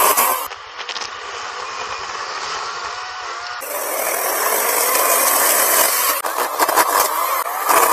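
Badger 40V cordless chainsaw with a brushless motor, cutting into a small tree trunk. A short loud burst at the start is followed by lighter running, then from about three and a half seconds in the sound turns louder and harsher as the chain bites into the wood.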